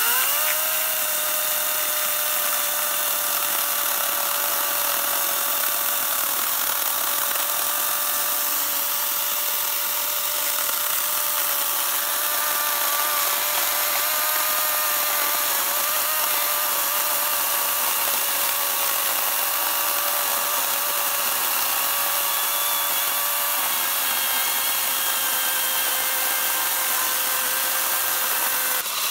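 Einhell GE-LC 36/35 Li cordless chainsaw, its brushless electric motor spinning up at the start and then running at a steady high whine as the chain saws through a thick log, wood chips spraying.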